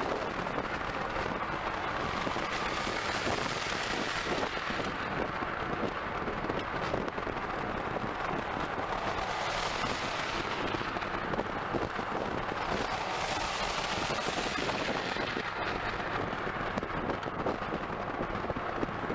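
Road and drivetrain noise inside the cabin of a moving full-size Jeep Wagoneer: a steady rushing din thick with small crackling knocks and rattles, its hiss swelling and easing a few times.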